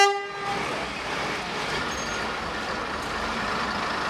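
First-generation diesel multiple unit sounding the low note of its two-tone horn, which ends about half a second in. Then its diesel engines run steadily as the unit moves slowly along the platform.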